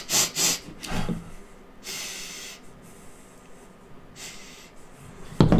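A person sucking a frozen slush drink through a straw, in several short noisy draws and one longer one of about a second, with breaths through the nose in between.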